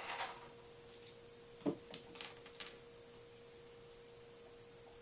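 Faint steady hum at one pitch, with a few soft clicks and a dull thump about a second and a half in.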